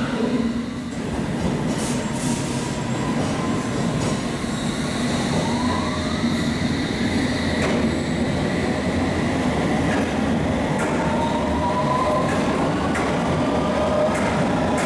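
London Underground S stock train pulling out of the platform, its traction motors whining and rising in pitch twice as it gathers speed over a steady rumble of wheels on rail.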